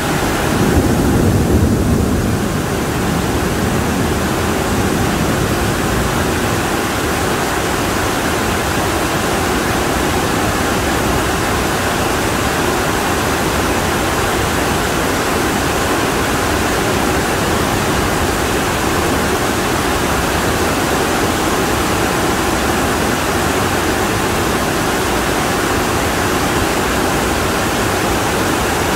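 Extremely heavy monsoon rain pouring down in a steady, dense hiss, a little fuller and lower for the first couple of seconds.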